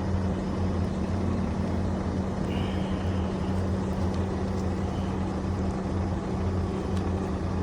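Steady low drone of a running motor, unchanging throughout, with a faint brief squeak about two and a half seconds in.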